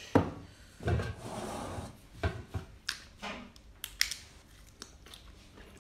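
Close-up eating sounds: a sharp click just after the start, a short noisy stretch, then a run of crisp bites and mouth clicks as a piece of food is bitten and chewed.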